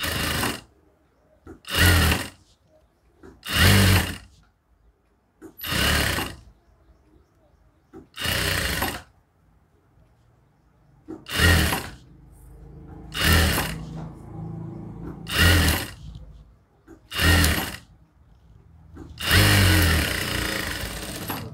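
Electric sewing machine stitching a seam in short runs of about a second, one every two seconds or so, with a longer run near the end.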